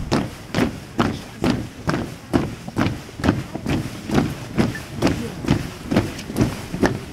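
A column of soldiers marching in step in combat boots on cobblestones: many boots landing together in a steady tramp, a little over two steps a second.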